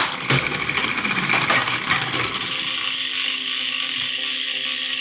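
Bicycle drivetrain turned by hand on the stand: the chain runs over the chainrings and cassette with a fast, continuous clicking as the Sensah Empire Pro front derailleur shifts it down. A couple of sharper clunks come right at the start as the chain drops onto the other chainring.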